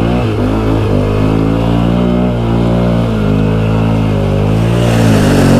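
Can-Am Outlander XMR ATV's V-twin engine running under throttle, its pitch rising and falling as the rider works the gas, and climbing a little near the end.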